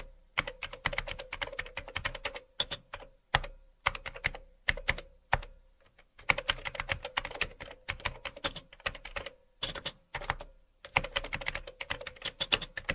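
Typing on keys: rapid runs of sharp key clicks broken by short pauses, the densest runs in the middle and near the end.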